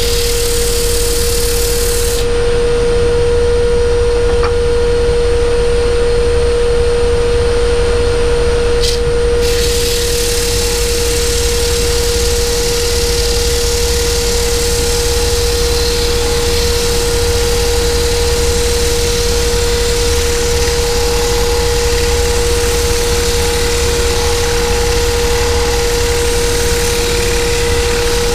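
Wood lathe running with a steady hum and a high, even tone, over the hiss of a turning tool cutting wood; the hiss thins out about two seconds in and returns some seven seconds later.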